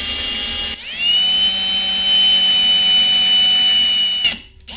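Cordless drill with a quarter-inch twist bit boring through a pilot hole in a pottery wheel's metal wheel head: a steady motor whine that stops under a second in, spins back up and runs about three more seconds, then stops, with a short burst at the very end.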